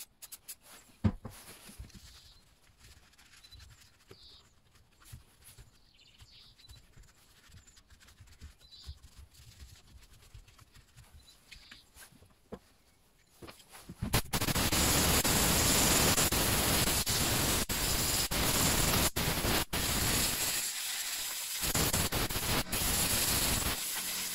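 Light handling knocks and a sharp click around the chainsaw. Then, a bit past halfway, a loud steady hiss of compressed air from a blow gun starts, with brief dips, as dirt is blown out of the Stihl MS 231 C chainsaw's engine area.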